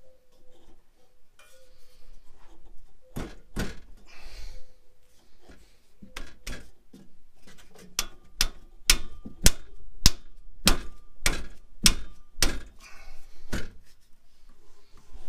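Sharp knocks on a metal exhaust pipe as the new rear section is worked onto the old pipe at the slip joint. A few scattered knocks come first, then a steady run of about a dozen, a little under two a second, some with a short metallic ring.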